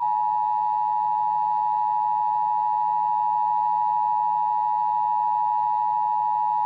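Emergency Alert System attention signal: two steady tones sounding together in one unbroken, unchanging drone that starts abruptly, the signal that an emergency alert message follows.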